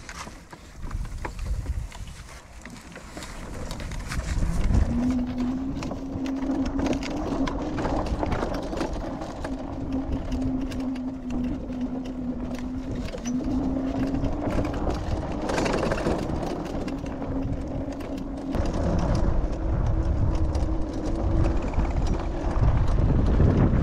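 Citycoco-type electric scooter's motor whining as it speeds up about four seconds in, then holding a steady pitch while riding. Underneath are a low rumble and scattered clicks and rattles.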